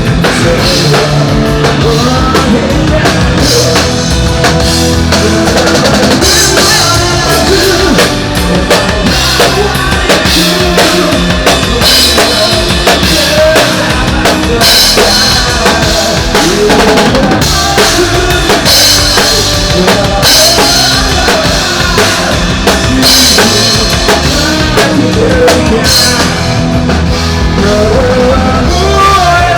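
A rock band playing live through an instrumental passage with no vocals, the drum kit to the fore with kick, snare and cymbals over bass and electric guitar.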